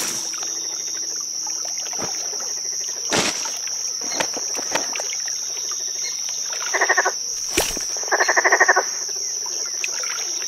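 Night ambience of crickets chirring steadily in a high band, with a frog giving two rattling croaks, a short one about seven seconds in and a longer one about a second later.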